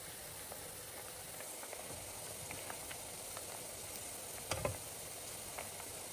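Flour-coated diced onions deep-frying in rapeseed oil in a pan: a steady sizzle with scattered small pops and crackles. A brief knock sounds about four and a half seconds in.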